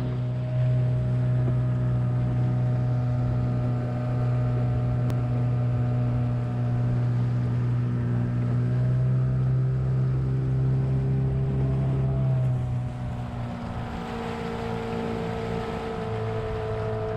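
Small aluminium boat's outboard motor running steadily under way, with a hiss of wind and water. About thirteen seconds in it gets quieter and changes its note.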